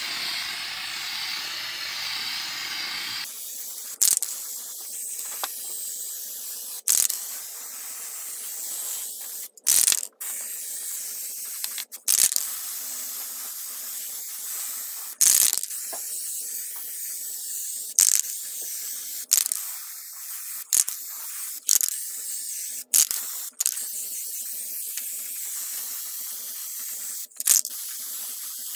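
Aerosol can of Plasti Dip spraying onto EVA foam armour pieces: a steady hiss, broken every second or few by short breaks and clicks.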